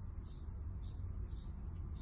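Scissors snipping through the layers of a 3-ply non-woven disposable face mask: short, soft, crisp cuts every few tenths of a second over a steady low rumble.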